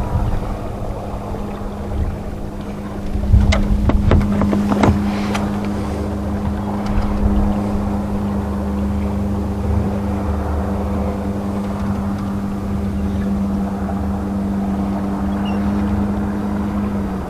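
Boat motor running at a steady speed, a constant hum that stops near the end, with a few sharp knocks about four seconds in.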